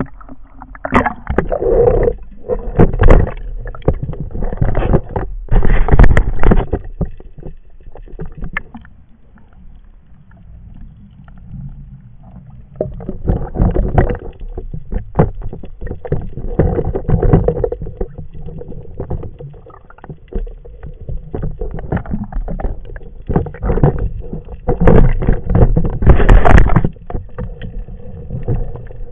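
Seawater sloshing and splashing around an action camera's waterproof housing as it bobs at the surface and dips under, in irregular dull surges with quieter lulls.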